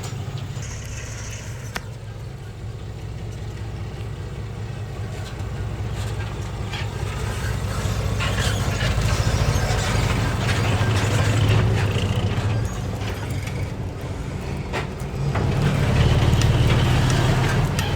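Diesel engine of heavy earthmoving machinery working under load, with a steady low drone that swells and eases, and scattered clanks of metal and stone.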